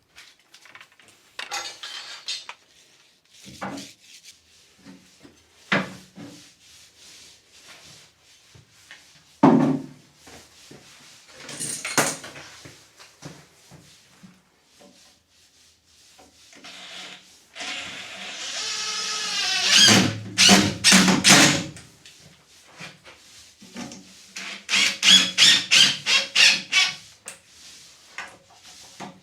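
DIY tool work: scattered knocks and clatter, then a power drill whining up in pitch for a few seconds about two-thirds through, followed by a run of quick rasping strokes.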